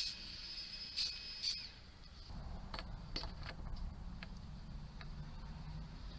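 Aerosol spray-paint can hissing with a thin whistle, in three short spurts within the first two seconds, then stopping; a few light clicks and handling knocks follow over a low rumble.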